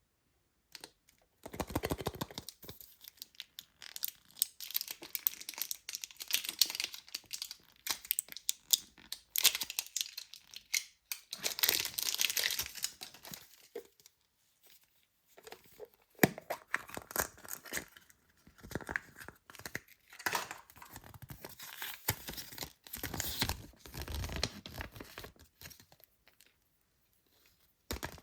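Toy packaging being torn open and crinkled by hand, in irregular crackling bursts, with a short pause about halfway and a sharp click just after it.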